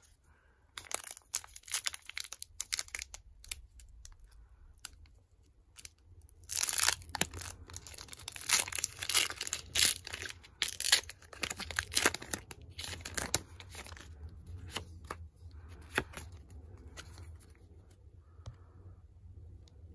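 Foil wrapper of a Pokémon booster pack crinkling and being torn open by hand: scattered crackles at first, then a long stretch of loud tearing and crinkling from about seven to thirteen seconds in, easing to lighter crinkles near the end.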